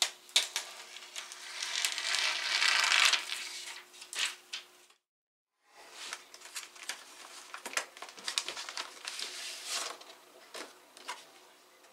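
Protective plastic film being peeled off a Zurich ZR Pro scan tool's screen, a crackling, tearing hiss for about three seconds. After a brief break, paper and a plastic sleeve rustle and crinkle as they are handled.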